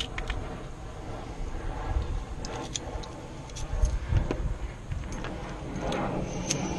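Light metallic clicks and taps of a Kwikset lock cylinder and its small parts being handled during a rekey, over a low rumble that swells twice, about two and four seconds in.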